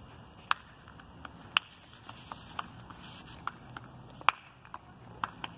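About a dozen sharp, irregular clicks and taps from the phone being handled and moved while it records, over a faint outdoor background.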